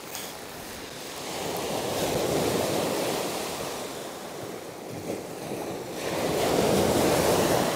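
Surf breaking on a shingle beach, the wash swelling twice, about two seconds in and again near the end.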